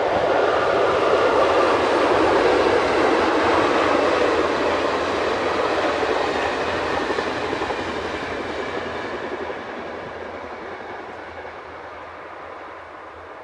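Passenger train running over a concrete railway viaduct, a steady rumble of wheels on rails. It is loudest in the first few seconds, then fades gradually as the train draws away.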